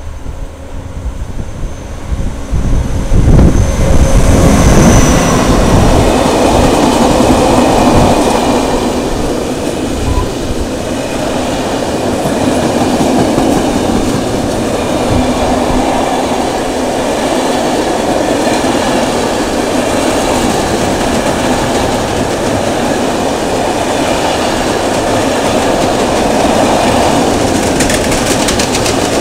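A V100 diesel-hydraulic locomotive passes close by, loudest a few seconds in, with a brief high squeal. It is followed by a long freight train of flat wagons loaded with rails, rolling steadily past with wheels clicking over the rail joints.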